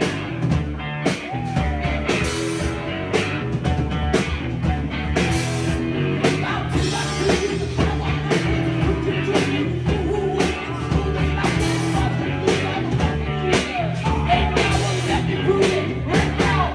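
Live rock band playing: distorted electric guitars and a drum kit under a singer's voice, with regular drum hits.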